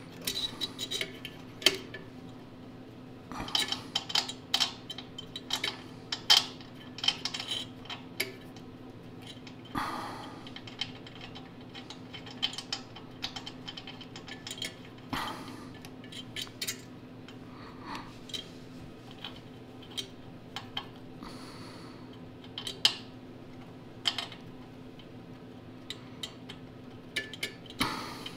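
Irregular small metallic clicks and clinks from handling a new carburetor and its paper gasket while fitting them onto the engine's intake mounting studs, over a steady low hum.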